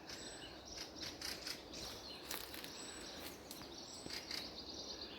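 Small birds giving rapid, repeated high chirping alarm calls at an intruder, with a few thin, higher whistled notes between them.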